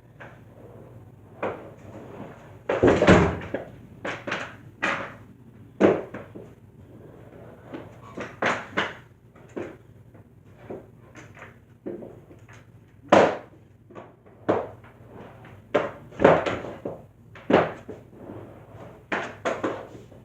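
Skateboard knocking and clattering on a homemade indoor ramp and floor: a series of irregular sharp knocks and thuds, the loudest about three seconds in with a short rumble.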